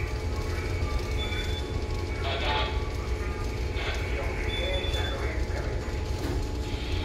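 Ship's bridge ambience: a steady low rumble of the vessel's engine and machinery under a constant electrical hum, with two short high beeps from bridge equipment and a few scattered knocks and clicks.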